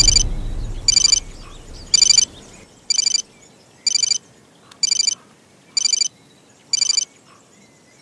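Mobile phone ringing with an electronic trilling ringtone: eight short rings, about one a second. A deep rumble fades out during the first two seconds.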